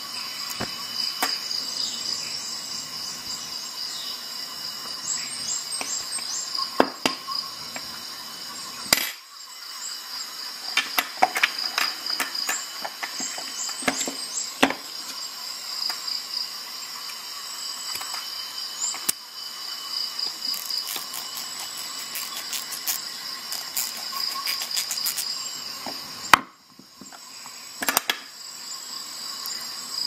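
Steady, pulsing high-pitched chirping of crickets throughout. Over it come scattered sharp metallic clicks and clinks of small steel hand tools (Torx bits, a ratcheting wrench, a socket) being handled, with a quick run of clicks about two-thirds of the way through and a louder knock near the end.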